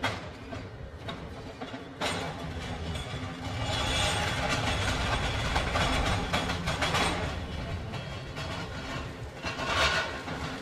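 Heavy construction machinery working: a steady low hum with clanking and knocks. It grows louder about two seconds in and is loudest in the middle.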